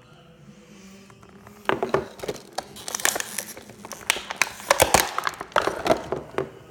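Crinkling and rustling of plastic toy packaging with sharp clicks and knocks, handled close to the microphone, starting a little under two seconds in and stopping shortly before the end.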